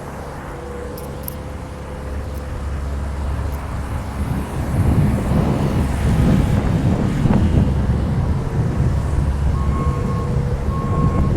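Heavy asphalt paving machinery engines running steadily, getting louder about four seconds in. Near the end, a backup alarm starts beeping at an even pace.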